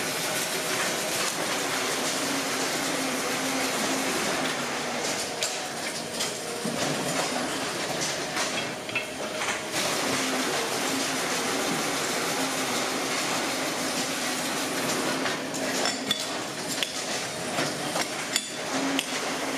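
Steady running noise of workshop machinery with a low hum that comes and goes, and sharp metal clinks near the end as a wrench works the nut on the steel shaft through a big kraft paper roll.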